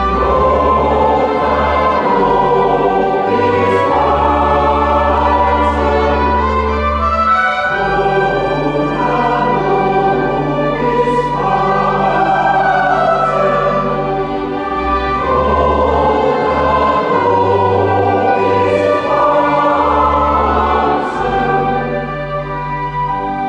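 Church choir singing with organ accompaniment, the organ holding long low bass notes beneath the voices. The music grows quieter near the end.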